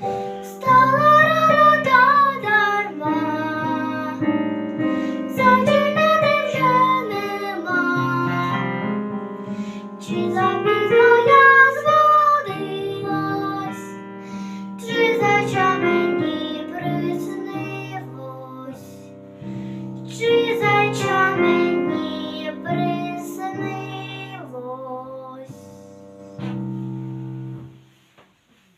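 Solo vocal song with instrumental accompaniment, sung in phrases of a few seconds each. The music fades out and stops shortly before the end.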